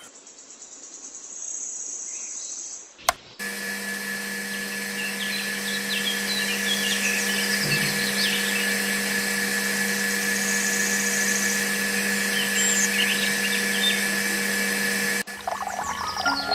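A small power tool motor running steadily, starting just after a sharp click about three seconds in and cutting off abruptly near the end, with faint high chirps over it.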